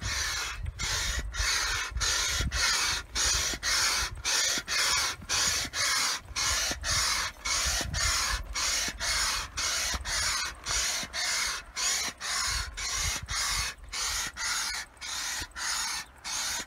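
Hand-operated upright piston air pump inflating a Seahawk 3 inflatable boat through a hose: an even, rhythmic hiss of air with each stroke, just under two strokes a second.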